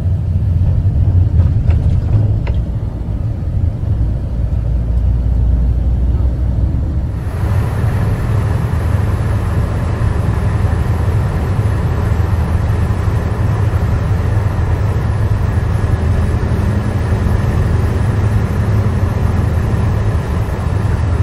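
Steady low rumble of a road vehicle driving, heard from inside the cabin. About seven seconds in, a brighter steady hiss of road and tyre noise joins it.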